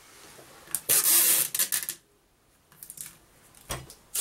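Tape being pulled off its roll: a loud ripping noise lasting about a second, followed by small clicks and taps and one dull knock near the end as the tape and paper are handled.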